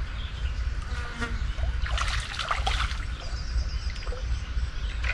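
Water splashing and dripping from a landing net as a hooked fish is brought in, in short bursts about two to three seconds in.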